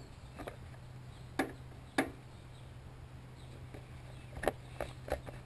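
A few short, sharp clicks and knocks from parts being handled on a self-propelled lawnmower's front drive wheel and pinion gear. The loudest comes about two seconds in, and a quick cluster follows near the end, over a steady low hum.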